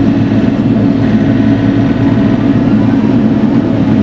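Bobcat E42 mini excavator's diesel engine running steadily under load while digging.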